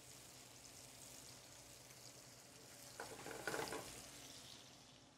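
Applewood smoked bacon and apple chunks sizzling faintly in hot olive oil in a stainless-steel skillet. About three seconds in, tongs stir them, giving a brief louder scrape and sizzle.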